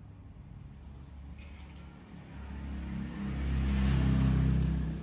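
A motor vehicle's engine passing: a low rumble that swells a couple of seconds in, is loudest near the end, then fades.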